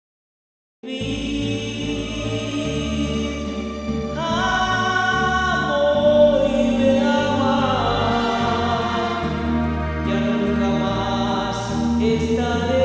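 Music begins abruptly about a second in: sustained chords over a stepping bass line, with a melody coming in about four seconds in.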